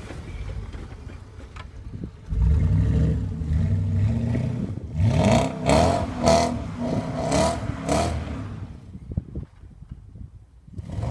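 Mercedes W211 E500's V8 engine revving hard, coming in suddenly about two seconds in, then climbing and surging about five times in quick succession before dying away near the end.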